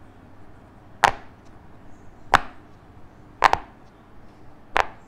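Silicone pop-it fidget toy's bubbles being pressed in by fingertips, each giving a sharp, loud pop. Single pops come about a second apart, the later ones in quick pairs.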